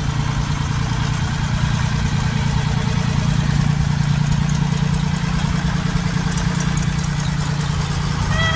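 Vintage tractor engine running steadily as the tractor drives slowly past. Crowd chatter is faint underneath, and a brief high pitched tone comes in at the very end.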